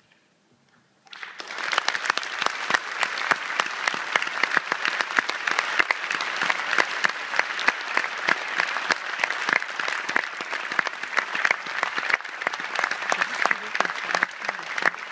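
Audience applauding. After about a second of near silence the clapping begins and continues densely, with individual claps from hands close by standing out.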